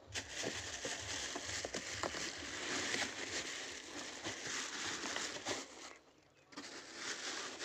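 Clear plastic wrapping crinkling and rustling as the helmet inside it is handled in a cardboard box. The crinkling stops briefly about six seconds in, then starts again.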